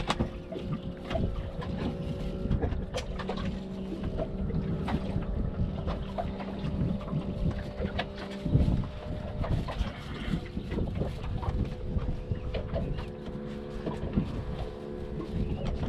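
Wind buffeting the microphone and water lapping against a small fishing skiff's hull, with a steady humming from the boat, part of which cuts off about halfway through, and scattered light taps and knocks.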